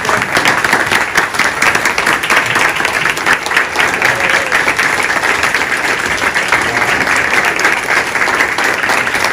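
Sustained applause from a large audience, many hands clapping steadily.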